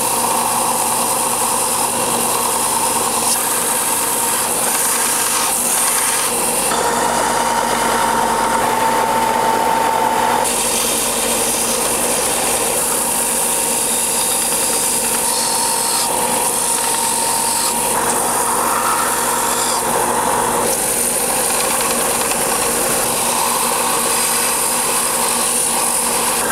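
Bench-top belt sander running while a wooden lure blank is pressed against the moving belt and sanded to shape, a steady hiss of abrasive on wood over the machine's hum. The tone shifts abruptly several times.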